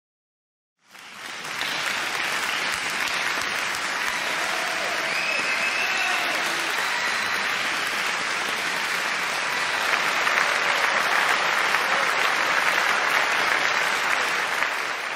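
Crowd applause with many hands clapping, coming in about a second in after a brief silence and running on steadily, with a few faint cheers or whistles mixed in.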